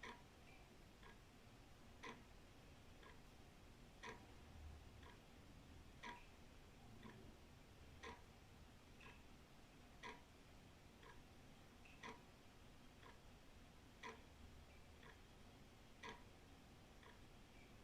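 Old wall clock ticking faintly, about one tick a second, alternating a stronger tick and a softer tock.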